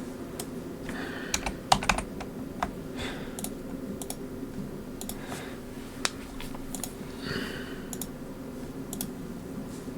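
Computer keyboard typing: irregular key clicks, a few louder ones about a second in, over a steady low hum.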